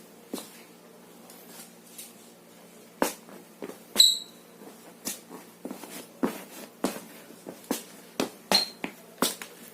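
Rubber-soled Jordan 1 Mid sneakers knocking and tapping on a hard floor as they are walked in, with a short high squeak of the soles about four seconds in and another near the end.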